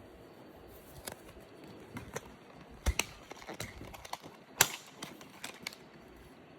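Scattered light clicks and taps from the drone being handled, with the loudest about four and a half seconds in. No motor or propeller sound is heard yet.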